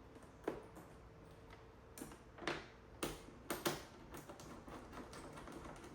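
Irregular small clicks and taps, about half a dozen sharp ones over a few seconds, from handling battery cables and their terminal connectors.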